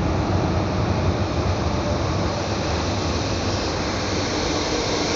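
Paris Métro MF77 train running through a station, a steady rumble and hiss of wheels and motors heard from inside the carriage.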